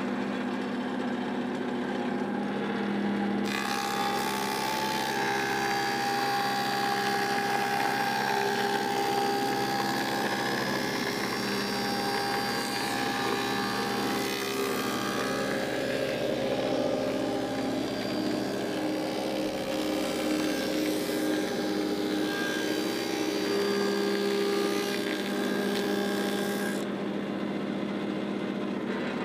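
Woodmaster thickness planer running with a steady hum. About three and a half seconds in, the cutterhead starts planing walnut boards and adds a harsher, hissing cutting noise. The cutting stops a couple of seconds before the end, and the planer keeps running empty.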